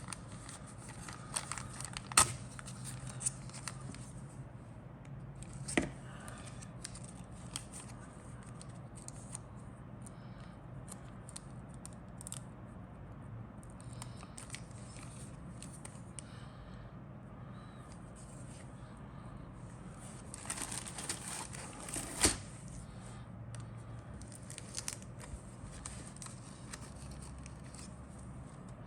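Plastic model kit parts and their plastic bags being handled, with crinkling rustles, scattered clicks and a few sharper knocks: the loudest about two, six and twenty-two seconds in.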